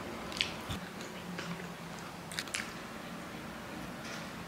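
A person chewing a mouthful of sauced fried chicken close to the microphone, with a few short sharp clicks.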